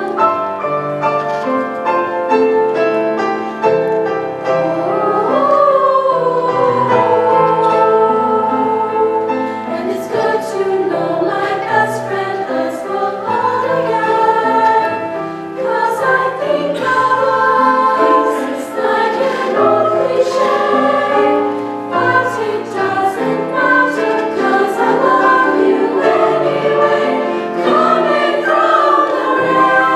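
Women's choir singing in harmony, several voice parts holding and moving between sustained notes.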